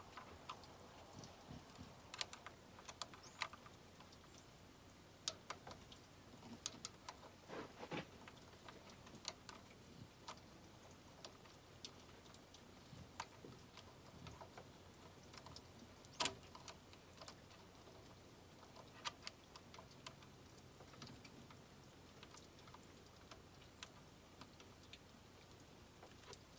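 Near silence with faint, irregular metal clicks and light taps from an 8 mm socket on a quarter-inch-drive extension, turned by hand to thread a vacuum pump mounting screw. One sharper click comes about sixteen seconds in.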